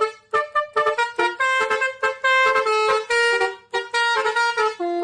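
Telolet bus horn playing its multi-tone melody: quick short notes at first, then longer held notes, stepping up and down in pitch.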